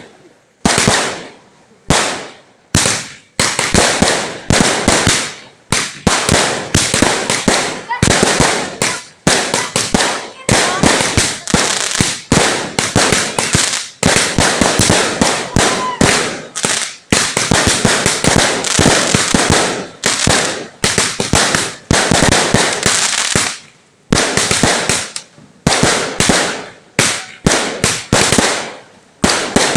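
Firecrackers going off in rapid, continuous volleys of sharp bangs, many a second, with brief pauses every few seconds.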